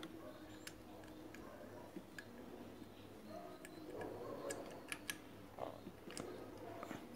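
Light, scattered clicks and taps of small tools and electronic parts being handled, several in quick succession around five seconds in, over a faint low hum.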